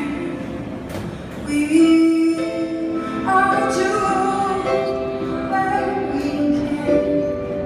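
Live music: a woman singing long held notes over instrumental accompaniment in a slow song.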